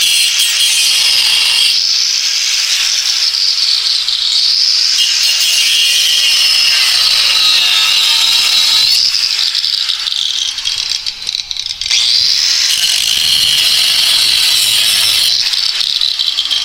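Power saw cutting 3/8-inch steel round bar, a loud high-pitched metal-cutting screech that wavers in pitch. It breaks off briefly about ten and a half seconds in and starts again about a second later.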